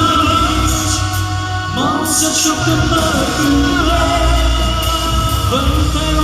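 Music: a song with long held sung notes over a steady bass, new phrases sliding in about two seconds in and again near the end.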